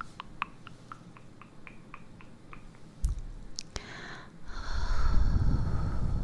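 A row of small, quick clicks, then a loud, noisy, snore-like breath in the second half.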